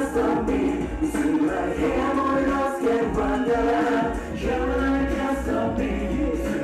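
Male vocal group singing in harmony into handheld microphones, several voices holding sustained notes over a steady low accompaniment.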